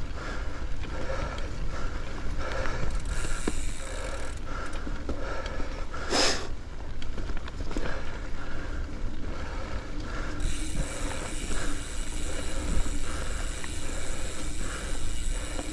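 Mountain bike ridden along a dirt singletrack trail: wind rumble on the microphone, the bike rattling and clicking over the ground, and the rider breathing hard in a steady rhythm. A brief hiss about six seconds in.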